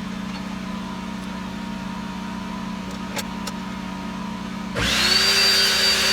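A steady low hum, then about five seconds in an electric power tool switches on: a loud rush with a whine that rises as the motor spins up, then holds steady at full speed.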